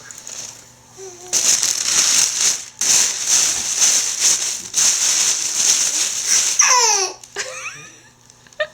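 A baby boy making his newly discovered noise: a loud, breathy hissing sound from the mouth in a few runs, ending in a short squeal that falls in pitch.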